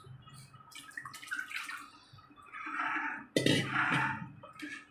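Thin kadhi sloshing and splashing in a metal kadai as it is stirred with a steel ladle, in uneven bursts, with one sharp knock of the ladle against the pan about three and a half seconds in.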